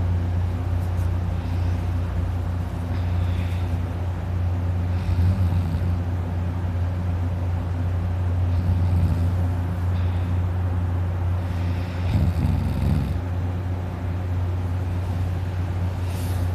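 A man snoring in deep sleep, a rough snore swelling up about every three to four seconds over a steady low drone.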